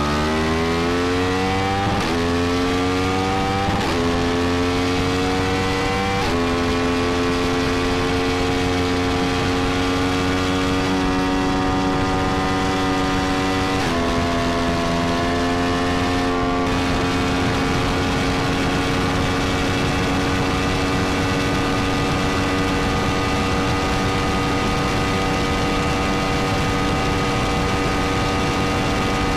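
Yamaha MT-10's crossplane inline-four engine at full throttle, its pitch climbing and dropping at four upshifts in the first half, then holding high and nearly steady at top speed, over a steady rush of wind.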